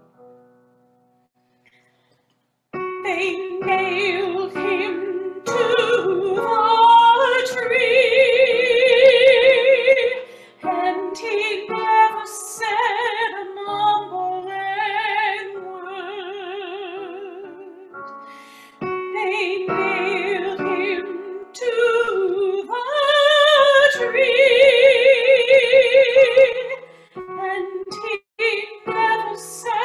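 Music: a woman singing a slow song with strong vibrato over piano accompaniment, starting about three seconds in after a short silence.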